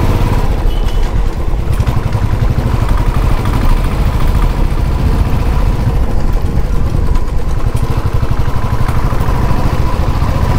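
Motorcycle engine running steadily while riding, a continuous low-pitched drone with no change in pace.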